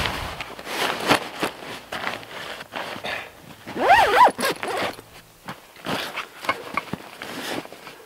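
Nylon duffel bag rustling and being handled as a tent and cot are packed into it. About four seconds in, the bag's long zipper is pulled closed in a quick run whose pitch rises and falls; this is the loudest sound.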